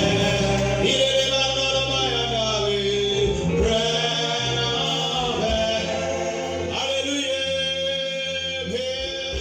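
Slow gospel hymn sung by church voices with musical accompaniment, in long held notes that change every second or so.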